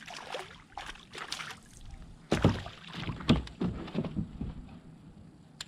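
Knocks and water splashes around a fishing kayak, as on a hull being bumped and water being stirred beside it. The loudest knocks come in a cluster from about two and a half to four seconds in.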